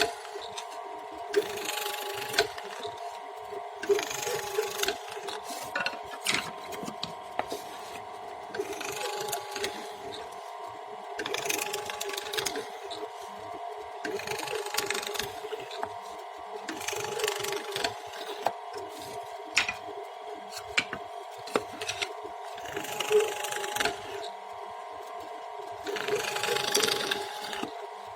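An electric woodworking tool running with a steady hum, cutting into wood in repeated noisy passes about every two to three seconds.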